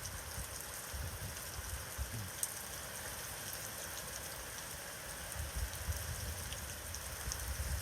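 Heavy hurricane rain falling steadily in an even hiss, with irregular gusts of wind rumbling on the microphone.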